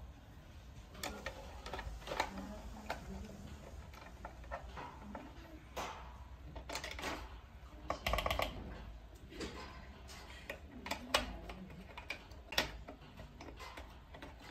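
Irregular plastic clicks and knocks as a Eufy X8 Hybrid robot vacuum's main roller brush is handled and fitted back into the robot's underside, with the brush cover pressed into place; a quick cluster of clicks comes about eight seconds in.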